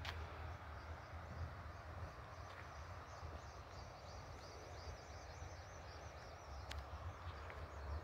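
Quiet countryside ambience: a steady low rumble under faint rapid high chirping through the middle, with a couple of sharp clicks.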